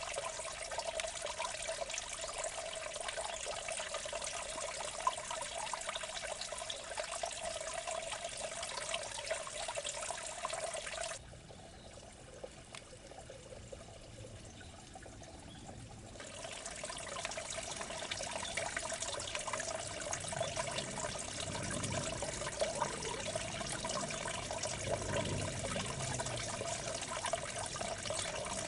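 Water running and trickling in a small irrigation ditch, a steady gurgle that drops much quieter for about five seconds in the middle before coming back.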